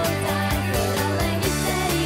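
Two girls singing a pop song into microphones over a backing with a steady beat and bass line.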